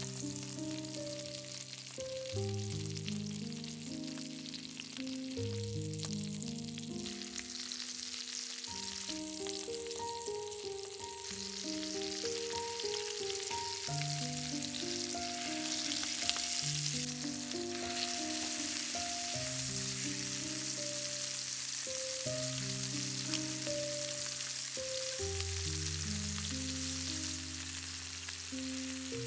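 Chicken drumsticks sizzling as they fry in hot butter and olive oil in a cast-iron skillet, the sizzle growing louder about halfway through. Soft background music of slow, held notes plays underneath.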